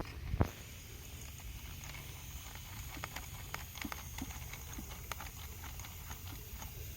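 Two sharp metal knocks, then a run of small irregular clicks and taps: hand tools and bolts being worked while the shifter detent plate is bolted onto the transmission valve body.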